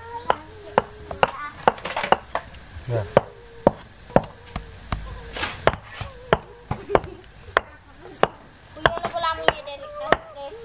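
Paving bricks being set by hand into sandy soil, knocking against one another and the laid course in an irregular series of sharp clacks, one or two a second.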